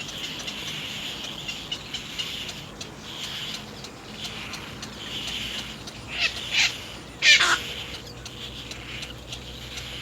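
Three harsh, croaking bird calls about six to seven and a half seconds in, the last the loudest, over a steady, pulsing high-pitched chirring.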